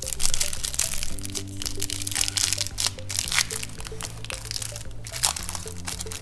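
Clear plastic bag crinkling and crackling as hands handle and open it, with background music throughout.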